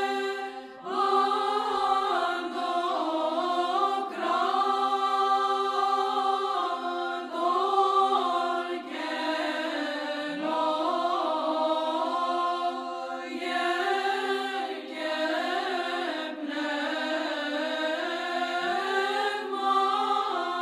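Orthodox church chant: voices singing a melody in phrases over a steady held drone.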